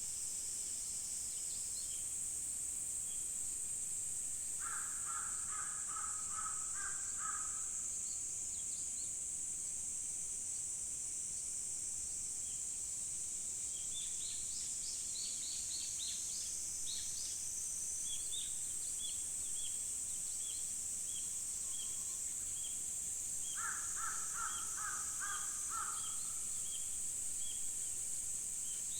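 Insects keep up a steady high-pitched drone while a crow caws in two short bouts, one early and one near the end. Small birds chirp now and then, one repeating a short note about twice a second through the second half.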